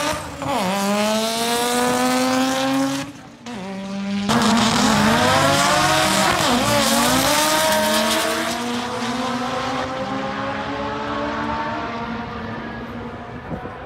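High-powered car engine revving hard as the car accelerates: its pitch climbs, breaks off about three seconds in at a gear change, climbs again, then dies away over the last few seconds as the car pulls off.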